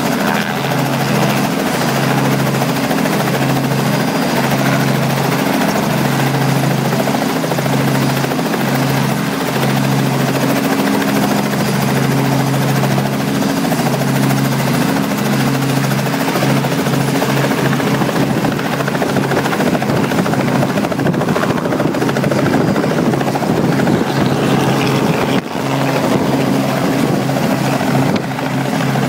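Robinson R44 helicopter running at close range with its rotor turning, a steady engine-and-rotor drone with a regular beat; a second helicopter, a Bell JetRanger, is lifting off and flying away behind it.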